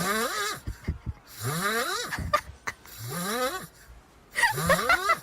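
An animal's voice: four drawn-out calls about a second and a half apart, each one rising in pitch.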